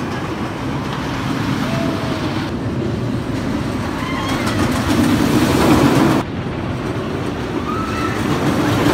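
Roller coaster train running along its steel track, a steady rumble that builds to about six seconds in, drops off suddenly, then rises again.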